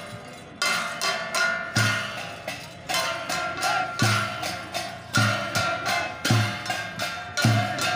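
Santali Dasai dance music: a steady beat of deep thumps about once a second, each with bright metallic ringing and clinking percussion, with lighter taps in between.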